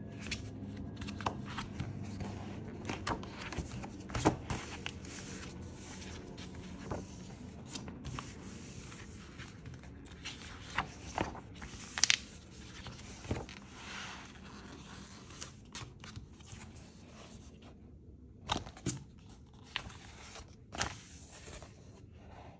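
Paper sticker book handled by hand: its glossy pages are opened, turned and smoothed flat, giving steady paper rustling and sliding with scattered sharp taps and crinkles, and a short pause about three-quarters of the way through.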